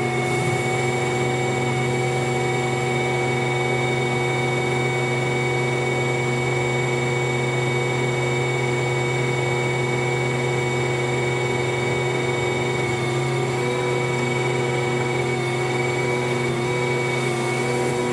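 John Deere 8R 410 tractor running steadily, heard from inside its cab: an even low engine drone with several constant whining tones over it.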